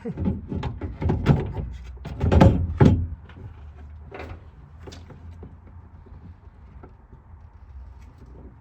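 Knocks, clunks and scrapes of a Nissan S13 hatch's tail light being worked loose from the car's rear panel, busiest and loudest in the first three seconds, then scattered light clicks.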